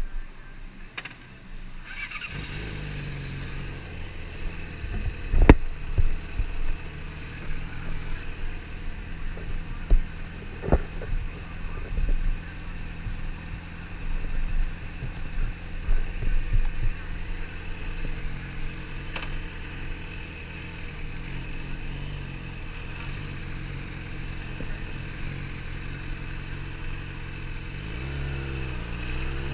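Yamaha R6's 600 cc inline-four engine starting about two seconds in, then idling steadily through its standard exhaust, which is not loud. A few sharp knocks break in. Near the end the engine revs rising as the bike pulls away.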